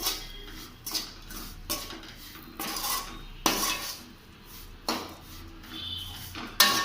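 A metal spoon stirring a thick spiced mash of boiled jackfruit seed in a cooking pan, knocking and scraping against the pan about once a second.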